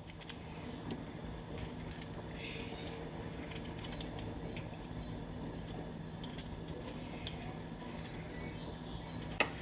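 Faint, irregular scraping and clicking of a kitchen knife peeling cassava and plantain by hand, over a low steady hum.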